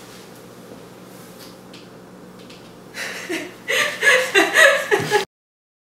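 Low room tone with a steady faint electrical hum, then about three seconds in a woman laughs for about two seconds, and the sound cuts off abruptly into silence.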